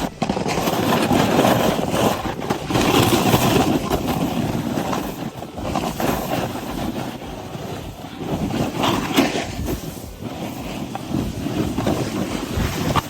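Snowboard sliding and carving through snow, with wind buffeting the microphone: a rough, rushing hiss that swells and eases.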